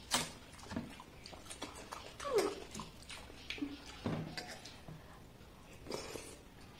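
Eating sounds: a hand squelching through watered rice on a steel plate, with scattered lip smacks and chewing clicks, and a short falling whine about two seconds in.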